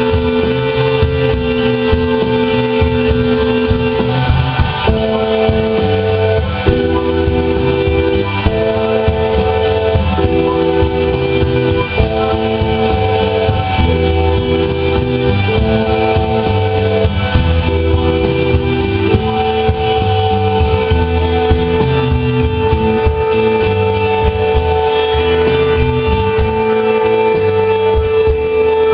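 A rock band playing an instrumental passage live, with guitar, synthesizer, bass and drums. Held chords alternate about once a second, then settle on one long held note.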